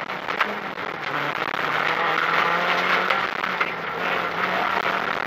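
Renault Clio rally car's engine working hard at high revs, heard from inside the cabin, with the revs dipping about a second in and then holding. Road noise and scattered clicks of gravel hitting the car run underneath.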